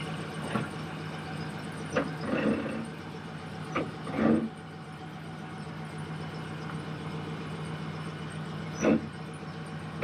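Tow vehicle's engine idling steadily as it creeps back toward the trailer hitch, with a few short knocks about 2, 4 and 9 seconds in.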